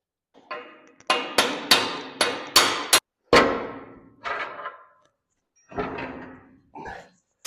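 Hammer blows on the steel front-end parts of a 1926 John Deere Model D tractor, each strike ringing briefly: a quick run of about eight blows, roughly three a second, then a few slower ones.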